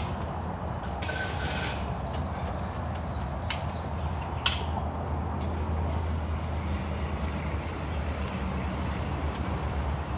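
A motor running with a steady low hum, with a few sharp clicks about three and a half and four and a half seconds in.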